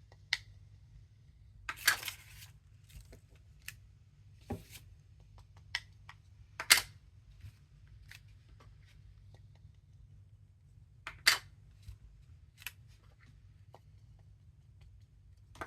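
Rubber stamps and paper being handled on a craft table: scattered sharp taps and clicks with a brief paper rustle about two seconds in, over a faint steady low hum.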